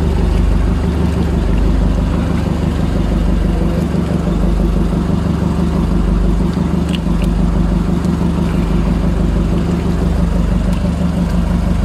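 A small fishing boat's engine running steadily at an even speed.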